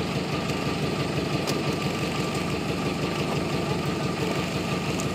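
Wooden fishing boat's engine running steadily.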